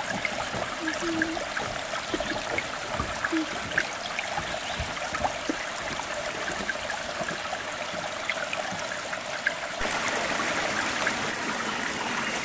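A small rocky creek running and trickling steadily, a little louder from about ten seconds in.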